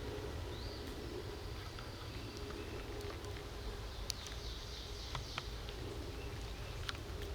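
Woodland ambience: a steady low wind rumble on the microphone, with a few faint, brief high chirps of small songbirds and scattered light clicks.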